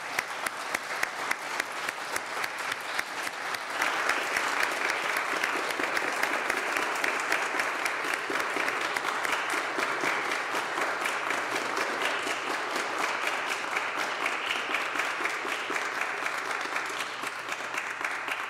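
Audience applauding, the clapping growing louder and fuller about four seconds in.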